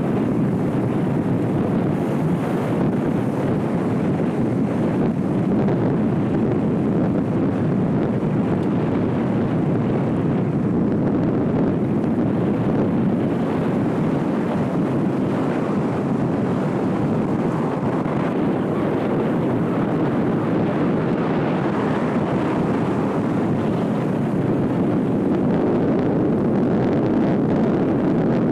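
Steady rush of wind and vehicle noise on the microphone of a camera riding in a moving vehicle that follows the race.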